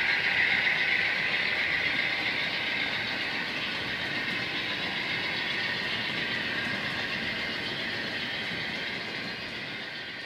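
HO scale model passenger train running on the track as it pulls away into a tunnel: a steady rushing rail noise that slowly fades and dies away at the end.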